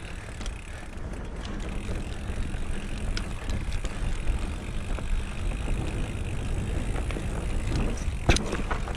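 Mountain bike riding fast down a dirt forest singletrack: a continuous rumble of knobbly tyres on the trail and the bike rattling, with wind noise, and one sharp knock near the end.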